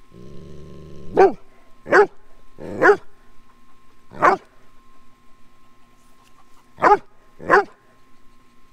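Large dog gives a low growl, then barks six times in short, loud, uneven barks at a kitten in front of it.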